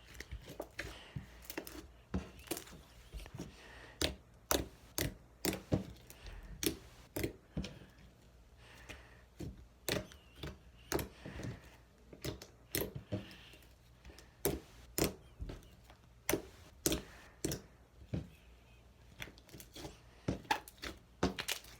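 Slime being handled: irregular sharp clicks and pops, about two a second, as it is pressed and stretched.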